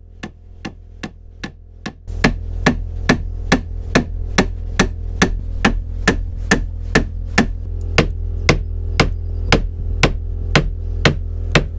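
A steady run of sharp, evenly spaced knocks, a little over two a second, over a low hum that grows louder about two seconds in.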